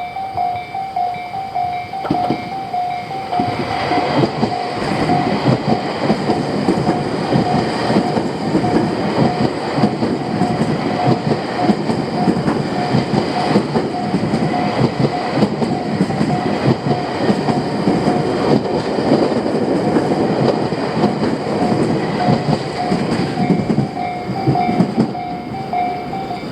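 Railway level-crossing warning bell ringing in a steady, repeating beat while a Tobu Railway train passes over the crossing. The train comes in about two to four seconds in, and its wheels clatter rhythmically over the rail joints almost to the end.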